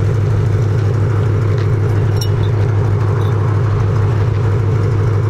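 Ford Mustang idling, its exhaust giving a steady, deep, even drone with no revving.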